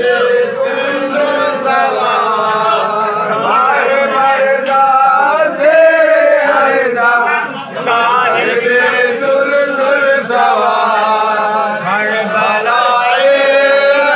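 Men's voices chanting together in a continuous devotional chant, with many voices overlapping around a held pitch.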